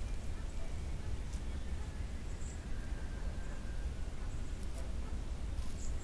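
Steady low rumble of background noise, with a few faint high clicks.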